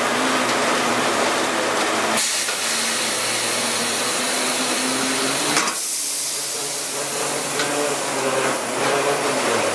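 Sawmill log debarker running, its rotating head stripping bark off a log with a steady mechanical din and hum. The sound changes abruptly about two seconds in and again about six seconds in.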